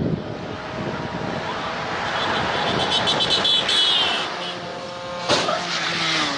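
A motor vehicle driving past on the road, its engine and tyre noise swelling to a peak about three to four seconds in and then fading, with a brief knock a little after five seconds.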